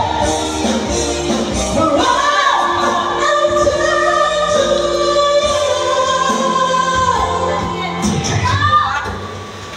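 A singer singing into a microphone over backing music, amplified through the venue's speakers, with long held notes.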